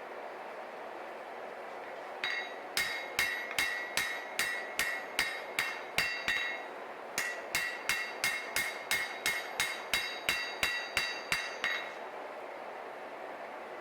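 Hand hammer striking a Damascus steel knife blade on the anvil, a steady run of ringing blows about two to three a second, a short pause, then a second, longer run. A steady rushing noise from the running forge lies underneath.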